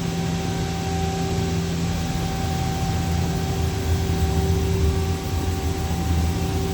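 Mazak QTS-350 CNC turning center running under power: a steady machine hum with two constant tones and a low rumble that swells through the middle, as the operator jogs the X axis.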